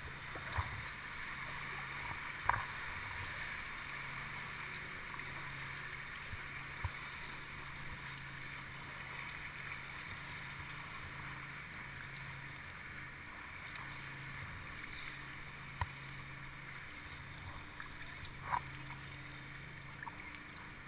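Kayak on open water: a steady wash of water and wind noise around the boat, with a handful of short, sharp knocks, the loudest about two and a half seconds in.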